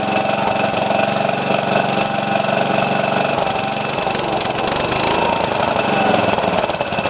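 Freshly rebuilt Briggs & Stratton lawn mower engine running on its first start, with new piston rings and gaskets, at high speed: it over-revs because the governor is misadjusted. The firing turns more uneven near the end.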